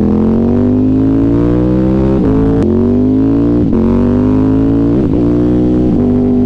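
Ducati Hypermotard 950 SP's L-twin engine, breathing through aftermarket stainless-steel exhaust cans, accelerating hard: the revs climb, then drop at three quick upshifts about two, three and a half and five seconds in, before holding steady near the end. Loud.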